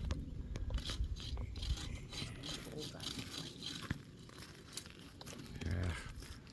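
Olive tree branches and leaves rustling and crackling in irregular snaps as someone moves about and trims in the tree.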